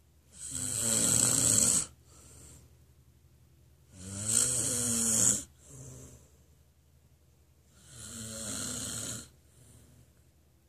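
Snoring: three loud snores about four seconds apart, each lasting about a second and a half, each followed by a fainter, shorter breath.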